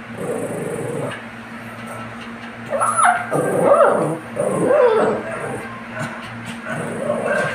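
Shih Tzu whining: a run of rising and falling whimpers in the middle.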